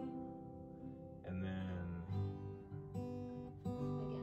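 Acoustic guitars strummed, chords ringing and changing about once a second.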